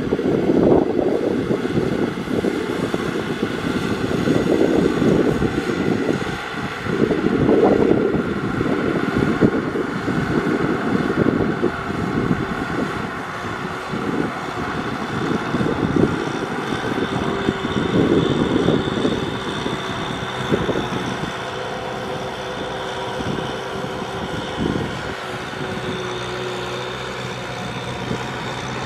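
Kubota M6040SU tractor's four-cylinder diesel engine running under load as it pulls a cultivator through flooded paddy mud. The sound is a dense, uneven rumble that surges and eases, and becomes a steadier engine note near the end.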